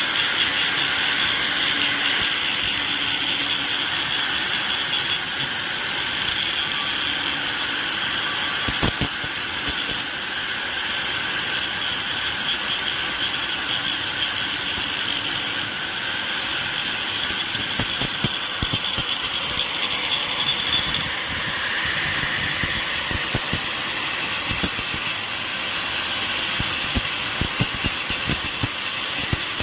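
Angle grinder running with its disc pressed against the edge of a small aluminium strip, grinding it: a steady, high grinding noise with scattered knocks and clicks, more of them in the second half.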